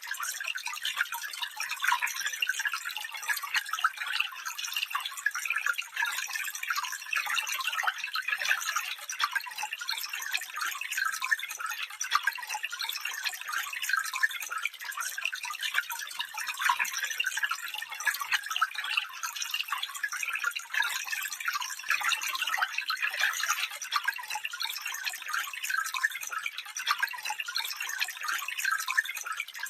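Shallow stream of water running steadily over stones, a continuous trickling and splashing made of many small quick splashes, with almost no deep rumble.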